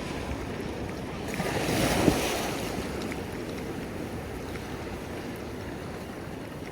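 Ocean surf washing against a rocky shore: a steady wash with one wave building and breaking about two seconds in, topped by a sharp splash, then easing off.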